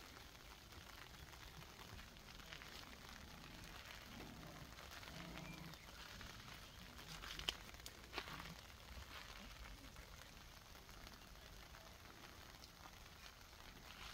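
Faint rain pattering on tent fabric, a steady soft hiss, with a couple of sharp ticks about seven and eight seconds in.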